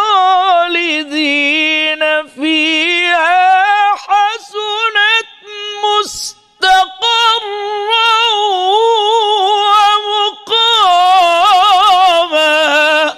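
A man's voice reciting the Quran in melodic tajweed style, holding long ornamented notes that waver up and down in pitch. There is a brief break about six seconds in, then another long phrase.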